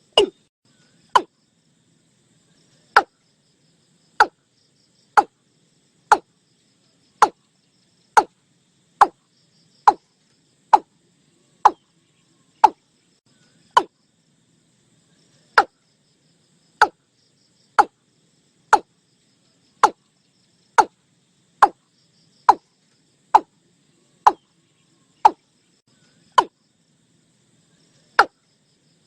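Watercock calling: a long series of short, sharp notes, each dropping quickly in pitch, about one a second, with a pause of nearly two seconds twice.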